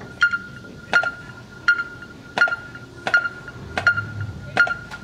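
Electronic metronome beeping a steady beat, about 80 beats a minute, each beep short and high-pitched, setting the tempo for a marching band before it plays.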